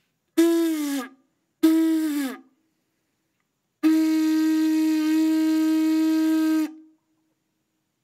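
Conch shell trumpet, a hole cut in its top, blown by buzzing the lips into it like a brass instrument. Two short blasts whose pitch drops at the end, then one long steady blast of almost three seconds.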